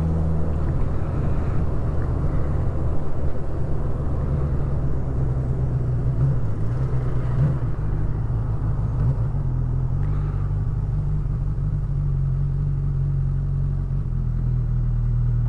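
Honda CB1000R's inline-four engine running steadily under way, heard from the rider's position with wind and road noise. The engine note steps in pitch about half a second in and again around ten seconds in.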